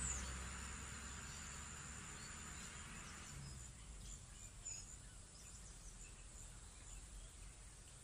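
Faint rural outdoor ambience: a low rumble and hiss that fade away over the first three seconds, under a steady high insect drone, with a few small high chirps scattered through the rest.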